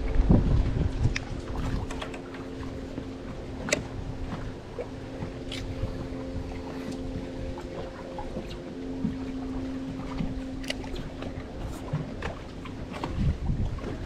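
Steady electric motor hum on a small fishing boat, its pitch holding level and growing a little stronger about two-thirds of the way through. Wind buffets the microphone at the start, and there are a few light knocks.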